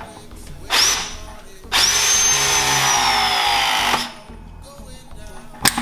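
Power drill run twice: a brief spin-up about a second in, then a longer run of about two seconds whose high whine sags slightly in pitch as it works. A sharp knock near the end.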